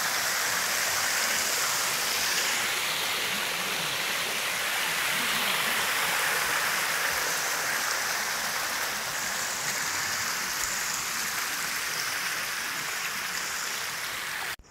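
Overflowing lake water spilling in a thin sheet over a stone weir wall, a steady rushing of falling water that stops abruptly at the very end.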